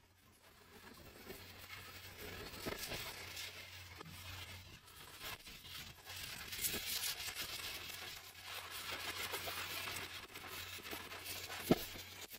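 Irregular rustling and scraping handling noises with scattered small clicks, over a steady low hum, and one sharp knock near the end.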